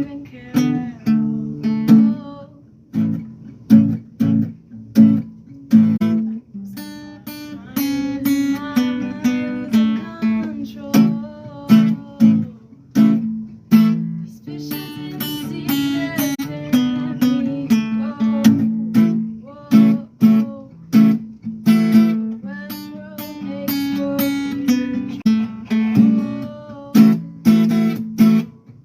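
Acoustic guitar strummed in a steady rhythm, with a voice singing a melody over it through much of the middle and later part.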